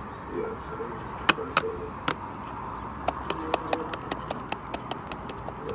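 Sharp, irregular clicks and taps in quick succession, like typing: a plastic toy figure tapped against a cardboard toy laptop.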